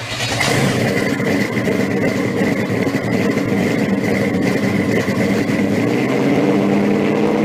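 Supercharged engine of a 1957 Chevy pro street car idling steadily, with a constant high whine over the engine note.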